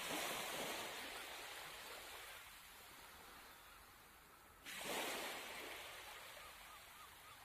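Small waves washing up on a sandy shore: two rushes of water, each swelling suddenly and fading over a couple of seconds, the second about halfway through.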